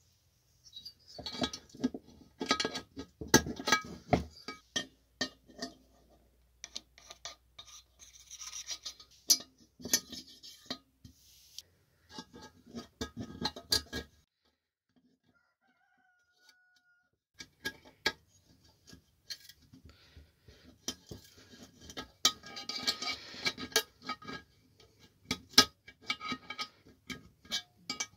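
Clinks, knocks and rubbing of small metal engine parts and hand tools being handled and worked on a bench, in short irregular bursts. About halfway through there are a few seconds of near silence.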